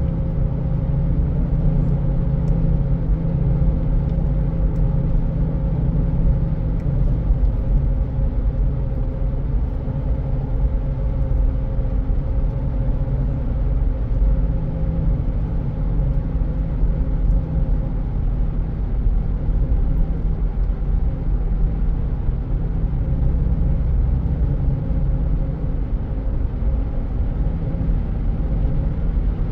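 Steady road noise of a car driving through a road tunnel, heard from inside the cabin: a low rumble of tyres and engine, with a faint steady hum in the first half.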